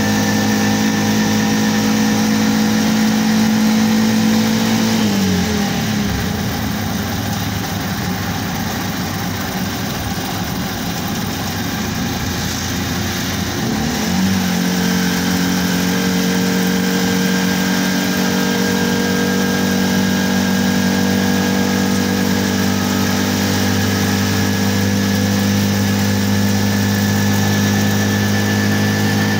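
Motorcycle engine running at a steady cruising note. Its pitch drops about five seconds in, runs lower and rougher for several seconds, then climbs back to the steady note about fourteen seconds in.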